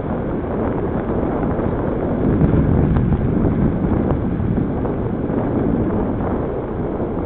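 Wind buffeting the microphone of a camera on a moving bicycle: a loud, steady, mostly low rush with no pitch.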